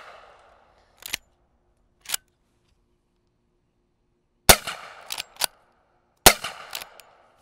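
Winchester Model 1892 lever-action rifle converted to .45 ACP firing two shots nearly two seconds apart, each followed by short metallic clacks of the lever being worked. Two more lever clacks come in the first two seconds, while the echo of the previous shot dies away.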